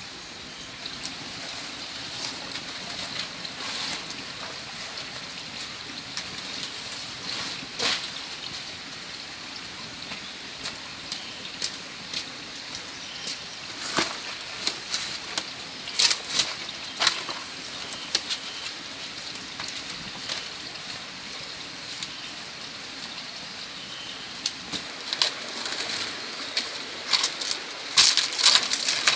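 Wood fire burning in a clay stove, with scattered sharp crackles and pops over a steady hiss. Later comes rustling and knocking from handling leaves and a basket, with a cluster of louder clicks and knocks near the end.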